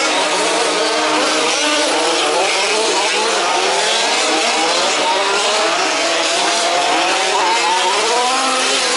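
Several 1/5-scale RC off-road race buggies' small two-stroke petrol engines running together on the track, with many overlapping pitches rising and falling as the cars rev and ease off through the course.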